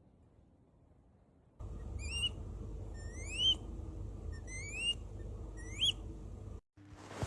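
An owl giving four short rising whistled calls, roughly a second apart, over a steady low background rumble. The sound starts abruptly about a second and a half in and cuts off shortly before the end.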